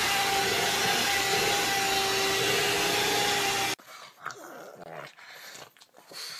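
Electric hair dryer blowing at a pug: a loud, steady rush of air with a held whine, which cuts off abruptly about four seconds in. Then come quieter, scattered small sounds from two pugs as one licks the other.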